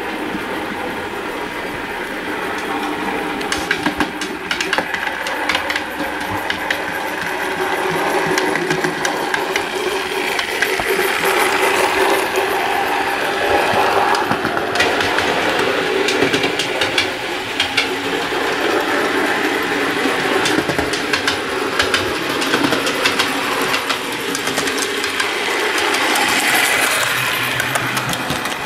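Model railway train, a tank locomotive hauling milk tank wagons and a coach, running along the track with many quick wheel clicks over the rail joints and a steady running rumble. It grows louder as the train comes past close by.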